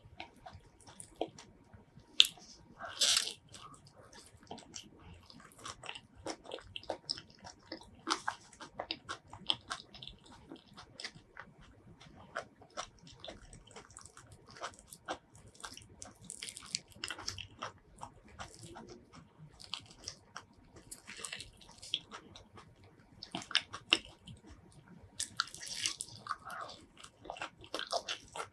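Close-miked eating of soft, creamy durian flesh: wet chewing and sticky mouth clicks and smacks in irregular bursts.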